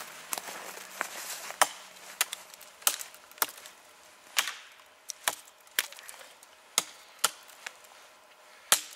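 Fiskars X7 hatchet chopping into a standing dead conifer. About a dozen sharp strikes at an uneven pace, roughly one every half second to a second.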